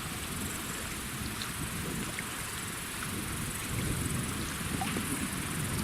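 Strong headwind buffeting the microphone: a steady low rumble with a hiss over it.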